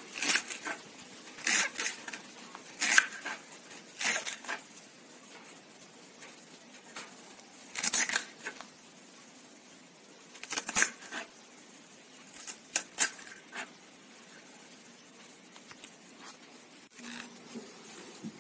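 Small knife cutting banana stem into cubes on a wooden block: crisp, short cuts at an irregular pace, several close together at first, then sparser with long quiet pauses.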